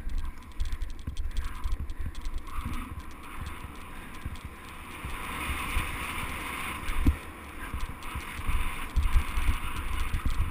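Mountain bike rolling fast down a dirt singletrack, heard from a bike-mounted or helmet-mounted action camera: a steady rumble with irregular thumps as the tyres hit bumps, tyre noise on the dirt, and one sharp knock about seven seconds in.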